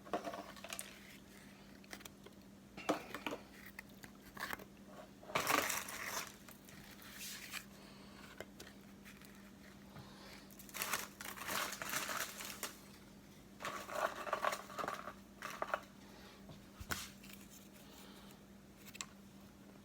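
Graham crackers being snapped into pieces and laid into a pan: scattered short crinkling and cracking sounds with a few light clicks, over a faint steady hum.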